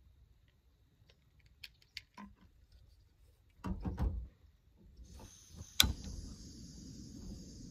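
Jetboil camp stove being lit. There are knocks as the burner and gas canister are handled, then gas starts hissing about five seconds in. A sharp igniter click follows, and the burner lights and burns with a steady hiss.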